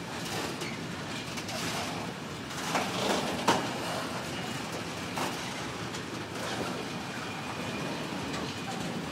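Autoballaster hopper wagons rolling past on the rails, wheels and bogies rattling and clicking, with one sharp metallic click about three and a half seconds in.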